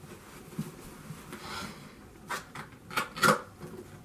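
Cardboard tripod box being handled and its top flap worked open: a few short knocks and scrapes, the loudest a little over three seconds in.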